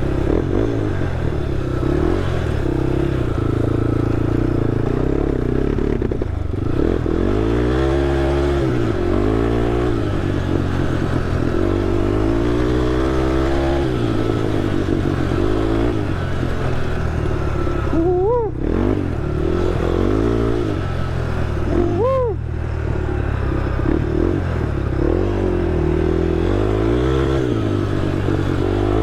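Honda TRX ATV engine running while being ridden, its pitch rising and falling with the throttle every few seconds, with two quick sharp revs about eighteen and twenty-two seconds in.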